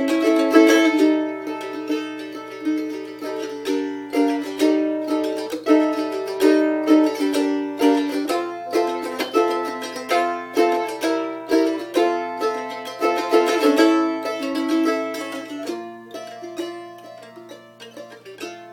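Voight handmade mandolin played solo: a quick picked melody with chords. About sixteen seconds in, the playing thins to sparser, softer notes.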